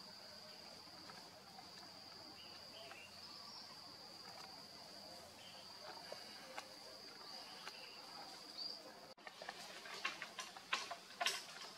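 An insect, cricket-like, keeps up a steady high-pitched drone in the background. About nine seconds in the sound cuts briefly, and a run of sharp clicks and short rustling sounds follows.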